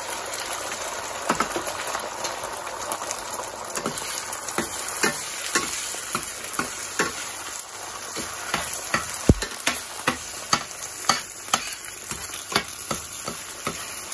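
Beaten eggs sizzling in hot oil in a stainless steel skillet, with a slotted metal spatula scraping and tapping the pan about once or twice a second as the eggs are scrambled; one sharp knock stands out about nine seconds in.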